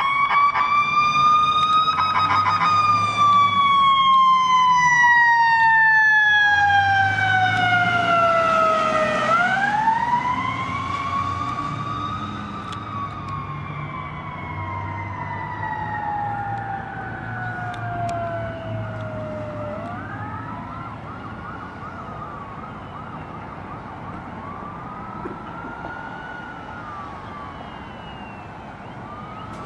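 Fire squad truck's electronic siren in wail mode, slowly rising and falling in long sweeps, fading as the truck drives away. In the second half a second, fainter siren wails at a different pitch, overlapping the first, over the low rumble of engines.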